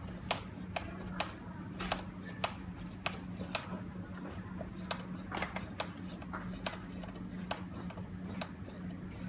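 Sharp irregular clicks and taps, about two or three a second, from hand work on door-lock hardware being fitted and fastened, over a steady low hum.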